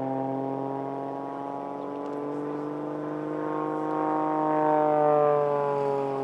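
Aerobatic plane's piston engine and propeller droning steadily. The pitch rises slowly, then falls a little near the end, and it is loudest about five seconds in.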